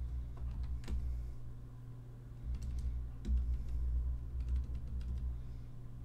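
Typing on the PinePhone keyboard case: irregular clicks of its small keys, bunched into quick runs, over a steady low hum. The key presses are registering on the phone now that the keyboard's pogo-pin contacts are shimmed.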